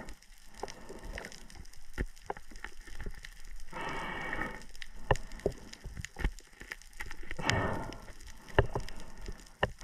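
Underwater crackling with scattered sharp clicks, and short hissing, scraping bursts every three to four seconds as a knife is worked into a speared dogtooth tuna's head to kill it.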